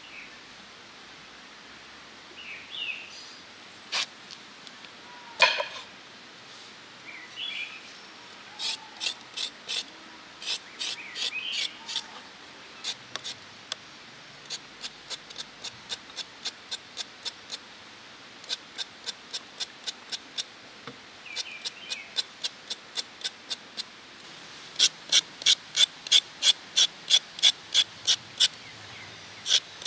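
Knife chopping on a wooden cutting board in steady strokes, about two a second, then quicker and louder, about three a second, near the end. Birds chirp a few times.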